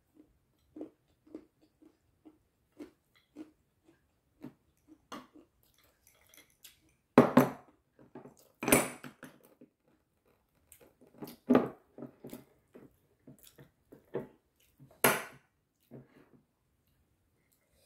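Close-up eating sounds: soft, regular chewing and mouth clicks about twice a second. Four louder, sharp sounds come in the second half.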